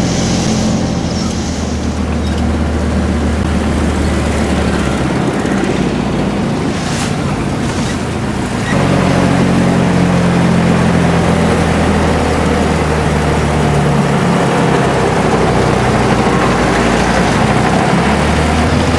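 Motorboat engine running steadily under way, with water and wind noise over it. About nine seconds in, the sound steps up suddenly a little louder and the engine note shifts.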